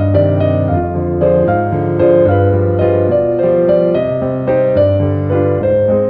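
Background piano music: a melody of notes over held low bass notes.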